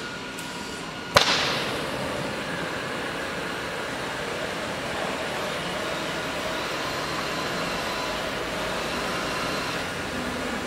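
Four oxy-fuel cutting torches on a gantry CNC flame cutting machine. A single sharp pop about a second in as the torches light, then a steady loud hiss of the flames cutting steel plate.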